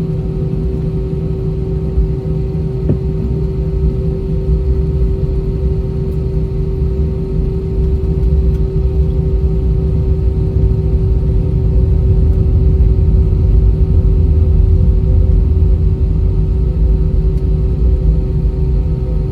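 Inside the cabin of an Airbus A320 taxiing: its IAE V2500 turbofans run at idle with a steady hum over a low rumble, swelling slightly through the middle.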